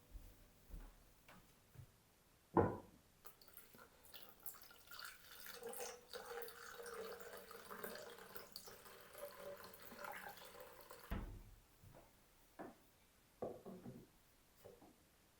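Water running from a tap for about eight seconds, starting just after a sharp click and stopping with a knock, followed by a few light clicks.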